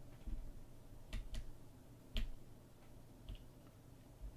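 A few short, sharp clicks from buttons being pressed on a ReinerSCT cyberJack RFID komfort card reader's raised keypad: two close together about a second in, a louder one just after two seconds, then fainter ones.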